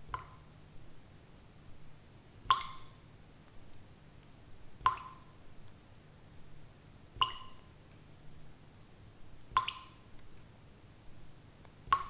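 Water droplets falling one at a time into water at a steady rhythm, about one every two and a half seconds, each a short ringing plop.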